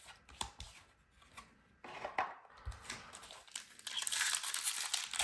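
Foil wrapper of a Magic: The Gathering booster pack being torn open and crinkled, starting with a few soft clicks and rustles and growing into loud crackling in the last second or so.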